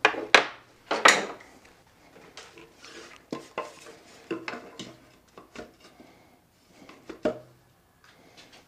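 Metal hand tools clinking and clattering on a wooden workbench, loudest in the first second or so. Then scattered softer knocks and rubs as a wooden block is handled on a motorcycle's fuel tank, with one firmer clunk near the end.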